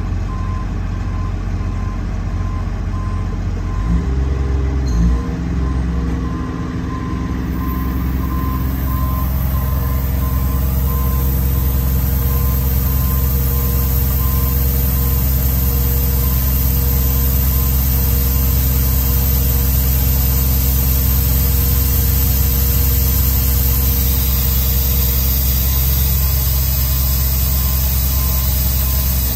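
Kubota diesel engine of a Miller EnPak service unit running steadily. About four to five seconds in there are two knocks and the engine note changes as the built-in air compressor is switched on, and the unit then runs on under load with a steady hiss, pumping up air pressure.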